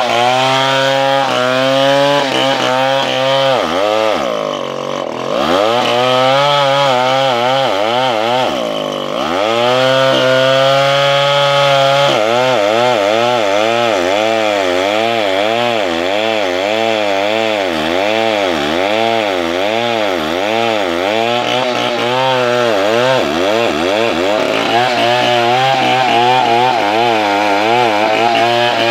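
Stihl 070 two-stroke chainsaw running at full throttle as it cuts through a large tree trunk, its engine pitch wavering up and down about once a second as the bar is rocked through the wood. Twice in the first ten seconds the engine drops sharply in pitch, bogging under the load, then recovers.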